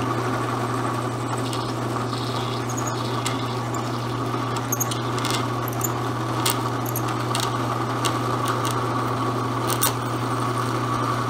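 Drill press running, its 11/64-inch bit drilling through two taped-together sheets of acrylic: a steady motor hum with scattered light clicks as the plastic chips come off.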